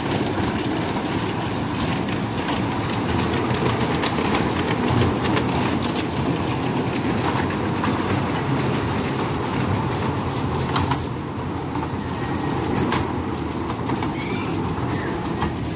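Small ride-on kiddie train running round its loop of rail track: a steady rumble with irregular clicks from the wheels on the track.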